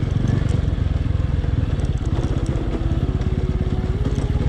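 Motorcycle engine running steadily at low speed, its firing pulses even throughout, with a faint whine that steps up in pitch twice in the second half.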